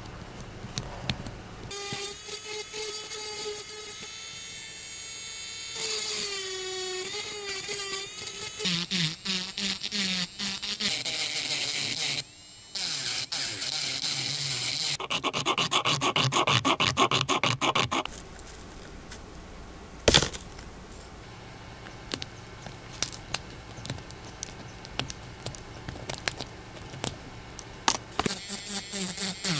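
Dremel rotary tool running at high speed, its whine dipping in pitch as the bit bites, then grinding and carving hard PLA plastic in rough, scratchy passes. It stops briefly about twelve seconds in. The second half is quieter, with scattered scraping and clicks and one sharp knock.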